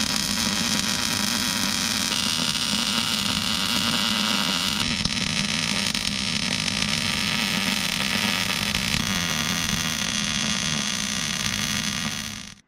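Wire-feed welder arc crackling and hissing steadily while welding a steel bracket to a vehicle's transmission tunnel. The crackle cuts off just before the end.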